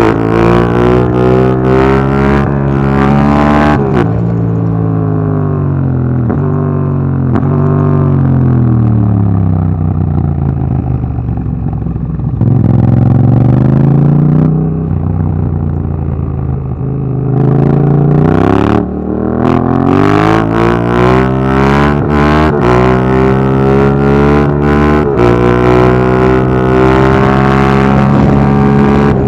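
Yamaha MT-07 parallel-twin engine through an Akrapovic Racing Line exhaust with its dB killer fitted. It accelerates hard through several upshifts in the first few seconds, then the engine note falls as the bike slows and runs low and steady mid-way. It then pulls away again, climbing in pitch through further gear changes, with wind buffeting the microphone.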